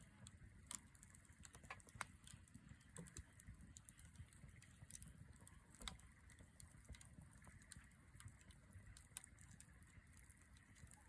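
Wood campfire crackling, with irregular sharp pops and snaps spaced unevenly over a faint low rumble.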